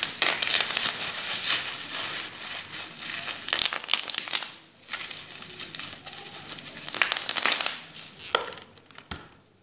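Plastic bubble wrap being crumpled and squeezed in the hands, a dense crackling rustle in two long spells broken by a short lull about five seconds in, trailing off near the end.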